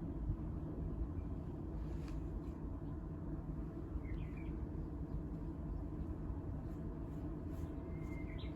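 Steady low rumbling outdoor noise, like wind on the microphone or distant traffic. Faint bird chirps come through twice, about halfway through and near the end.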